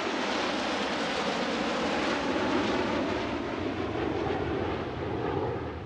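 Fighter jets flying past in formation: a steady jet-engine rush with a low rumble under it, easing off slightly near the end.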